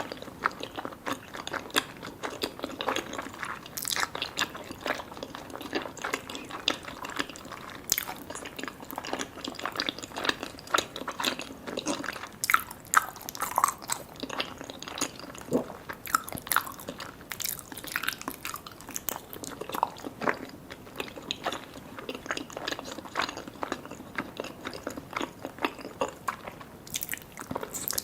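Close-miked eating sounds: biting and chewing soft, sticky Vietnamese jelly and pandan layered cake, an irregular run of wet, sticky mouth clicks and smacks.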